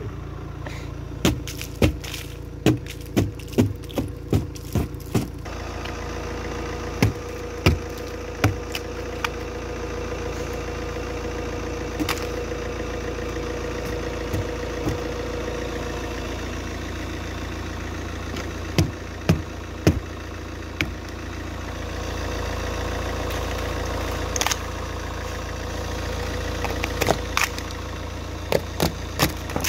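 Car engine idling steadily, with a series of sharp cracks and knocks as the ice crust caked on the car's body is broken off and chunks of ice fall onto the asphalt, a quick run of them in the first few seconds and more scattered through.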